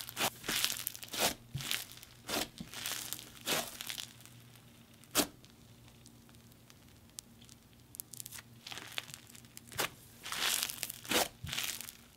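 Crunchy micro floam slime squeezed and stretched by hand, giving repeated bursts of crackling crunches from the foam beads. There is one sharp pop about five seconds in and a quieter spell after it.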